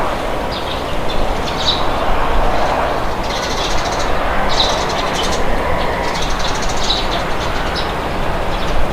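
Wind blowing as a steady rush, with small birds chirping in short repeated bursts over it.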